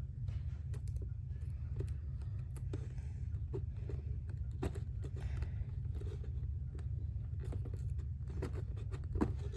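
Scattered clicks, crinkles and tearing of toy packaging being worked open by hand, over a steady low hum.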